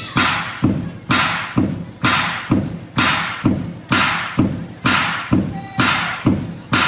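Dance music over a PA system stripped down to one heavy percussive hit, repeating evenly about twice a second, each hit ringing out before the next.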